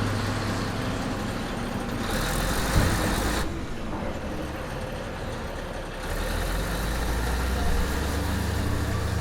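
Heavy mining machinery engine running with a low, steady rumble. About two seconds in there is a burst of hissing with a single clunk in the middle of it; the rumble then drops back for a couple of seconds before building again.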